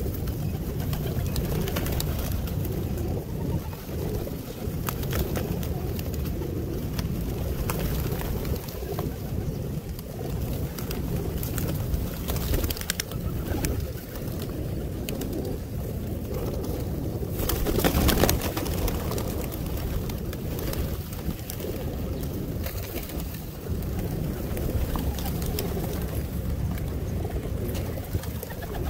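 A flock of feral pigeons cooing steadily as they feed, with many small clicks from beaks pecking seed off concrete. A brief louder burst of noise comes about two-thirds of the way through.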